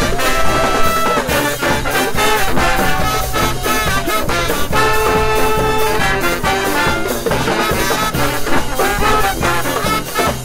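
Brass band playing funk live: saxophones, trumpet and sousaphone over a drum kit keeping a steady beat. The horns hold a long note about halfway through.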